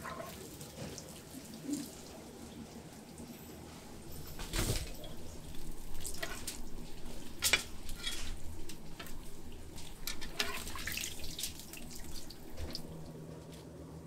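Hot oil sizzling as scallion bread sticks deep-fry in a wide pan, with scattered sharp clinks and scrapes of metal tongs and a spatula against the pan and dough, the loudest clink about halfway through.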